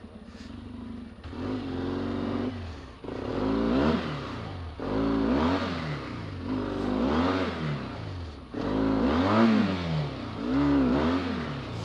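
1991 Yamaha XTZ 750 Super Ténéré's parallel-twin engine pulling through mud. After about a second of low running it revs in repeated throttle bursts, about six surges that rise and fall in pitch.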